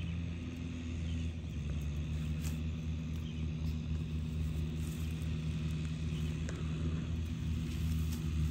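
A steady low hum of an engine running at an even pace, with faint light rustles over it.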